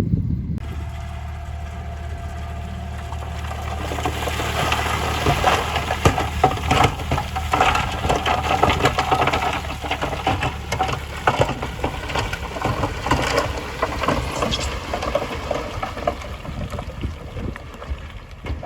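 Heavy earthmoving machine's diesel engine running steadily while gravel and stones crunch and clatter under it, the crunching dense from about four seconds in; the engine hum fades out about halfway through.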